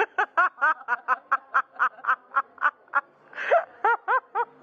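A young woman laughing hard in a quick run of short pitched bursts, about four or five a second, with a louder burst about three and a half seconds in.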